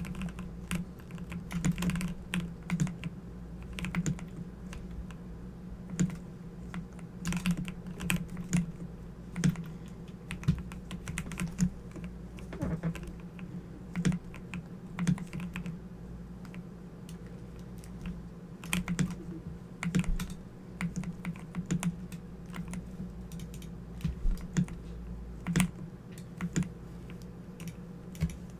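Typing on a Corsair computer keyboard: quick irregular runs of key clicks with short pauses between them, over a steady low hum.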